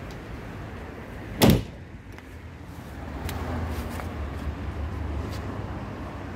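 Carryboy hard tonneau lid on a Toyota Hilux pickup bed shutting with a single loud thud about a second and a half in, over a low background rumble.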